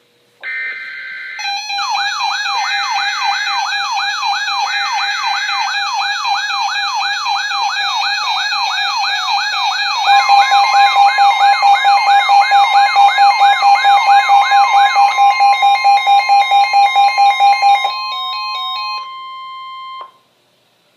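Emergency alert signal: a brief data-like warble, then an electronic siren wailing up and down about three times a second over layered alarm tones. About ten seconds in a steady single tone joins, the NOAA Weather Radio 1050 Hz warning alarm that marks a warning about to be broadcast, and it sounds alone for the last few seconds before cutting off.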